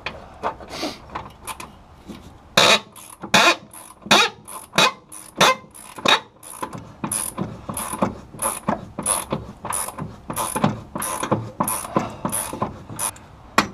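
Ratchet wrench on a 3/4-inch nut of the front suspension, its pawl clicking in quick, even back-strokes, about two a second, as the nut is worked loose. The clicking starts a couple of seconds in, after a few lighter taps.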